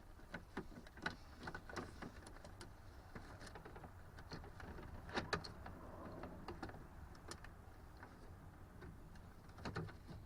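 Scattered light clicks and knocks of small plastic door-trim parts being handled and fitted together, with a couple of sharper clicks about five seconds in and one near the end.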